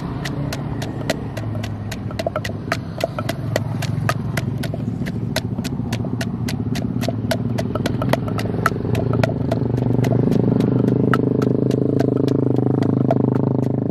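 Wooden pestle pounding fruit in a wooden mortar for rujak bebeg, an even rhythm of about three to four knocks a second. An engine hum runs underneath and grows louder about halfway through.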